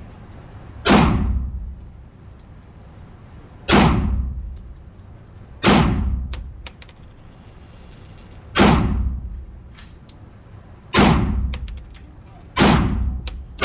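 Handgun shots fired slowly, one at a time, about two seconds apart: six shots, with a seventh right at the end, each followed by a short ringing decay. The shooter is emptying the magazine.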